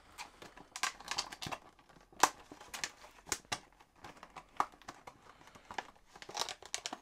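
Packaging crinkling and rustling as it is handled, in many irregular sharp crackles; the loudest comes about two seconds in.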